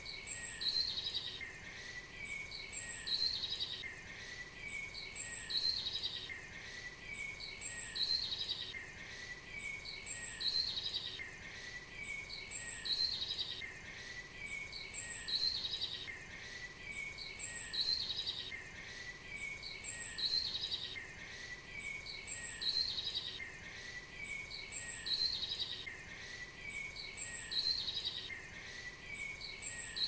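Birdsong, the same short chirping phrase repeating about every two and a half seconds over a steady faint background hiss.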